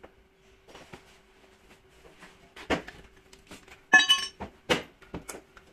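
Scattered knocks and clinks of tools and parts being handled at a car's wheel well, with one loud ringing metallic clink about four seconds in, over a faint steady hum.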